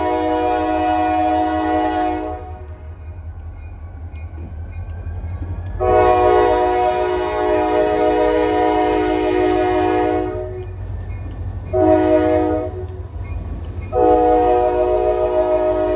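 Freight locomotive's multi-note air horn sounding the grade-crossing signal: the end of one long blast, then a long blast, a short one and another long one. A steady low rumble from the train runs underneath.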